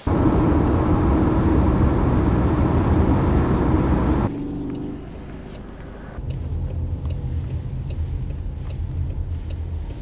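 A moving car: loud rushing road and wind noise for about the first four seconds, cutting off abruptly, then a lower, steady rumble of the car heard from inside the cabin.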